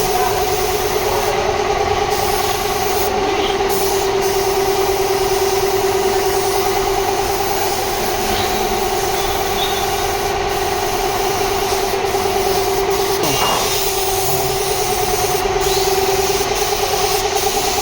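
A motor running steadily with a constant-pitch hum over a broad hiss.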